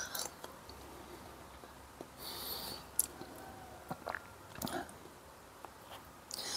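A person eating with a spoon from a bowl: quiet chewing, a few light clicks of the spoon against the bowl and a couple of short hissing sounds.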